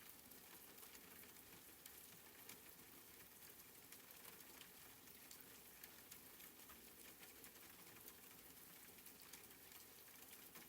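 Faint steady rain sound, an even hiss dotted with small scattered drop ticks.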